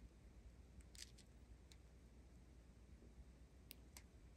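Near silence with a faint low hum, broken by a few soft crinkles of small plastic zip bags of diamond-painting drills being handled.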